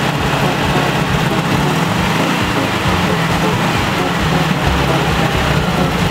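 Volkswagen T2 bus's air-cooled flat-four engine running steadily on its first start.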